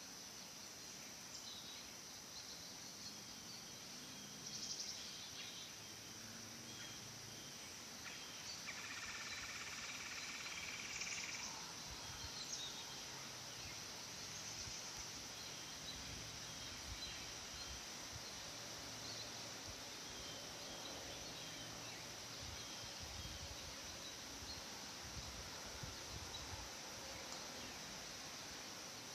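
Faint, steady, high-pitched insect chorus. A brief call sounds from about nine to eleven seconds in, and there are a few soft low rustles.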